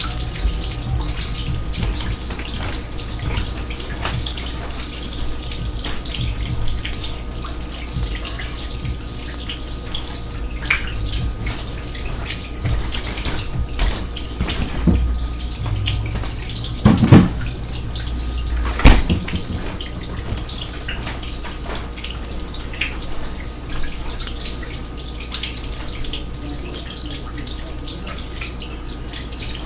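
Water running and spattering steadily from an overflowing kitchen sink, with many small drips and ticks. Two louder knocks sound about two seconds apart a little past the middle.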